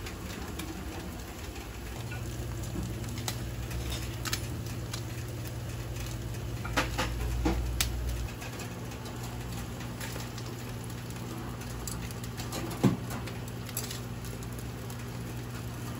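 Fish grilling on wire racks under an overhead grill: a steady low hum with scattered small pops and ticks.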